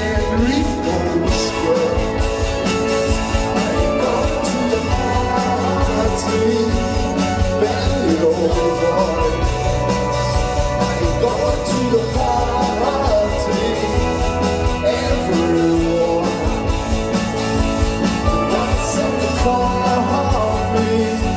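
Live rock band playing, with electric guitar and drums, and a male lead vocal singing at times.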